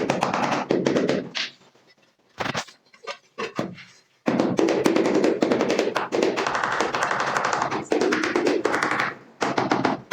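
Quick repeated tapping on porcelain floor tiles to bed them into the mortar, in long runs of rapid strikes broken by short pauses.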